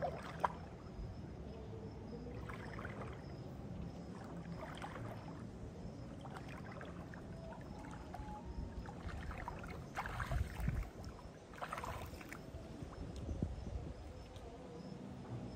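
Legs wading through shallow river water, sloshing and splashing in uneven steps every second or two, loudest a little past the middle.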